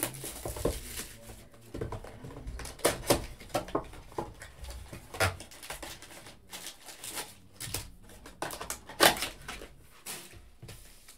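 Shrink-wrap cellophane being torn and crinkled off a cardboard Panini Prizm football blaster box, then the box flaps being opened and foil card packs set down on a table: scattered rustling with short clicks and light knocks, the sharpest at about three, five and nine seconds in.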